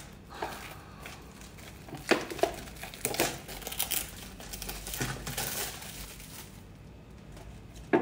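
Clear plastic shrink-wrap being peeled off an instant-noodle cup, crinkling and tearing in irregular bursts.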